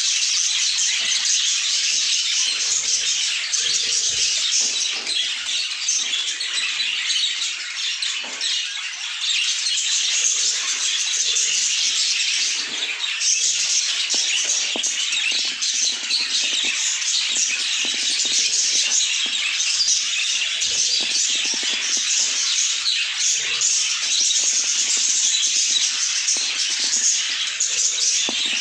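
A flock of budgerigars chattering: many overlapping high, quick chirps at a steady level, without a break.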